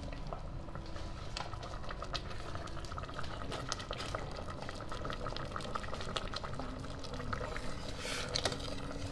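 Creamy tom yum soup simmering in a stainless steel pot, bubbling and popping steadily as a ladle is moved through it, with a brief louder hiss about eight seconds in.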